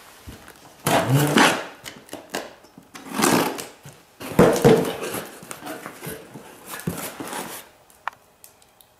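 A cardboard shipping box being opened: packing tape slit and pulled off and the flaps pulled back, in several short bursts of tearing and scraping, with one sharp click near the end.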